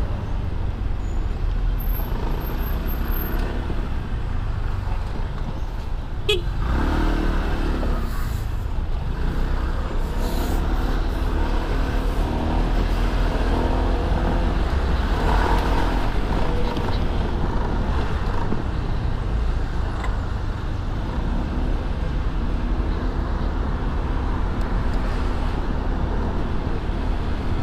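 Honda SH150i scooter riding in city traffic, its engine running under a steady low rumble of wind noise, with other vehicles around. There is a single sharp click about six seconds in.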